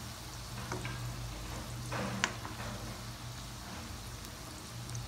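Gulab jamun dough balls deep-frying in hot oil in a wok, a steady sizzle over a low hum, with a sharp click about two seconds in.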